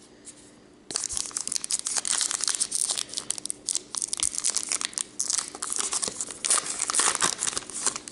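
Trading card pack wrapper being torn open and crinkled by hand, starting about a second in as a dense run of crackling and crinkling.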